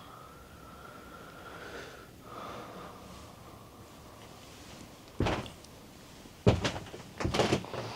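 Sharp knocks on the cabin, taken for tapping on the window: a single knock about five seconds in, then a quick run of three or four knocks a second later.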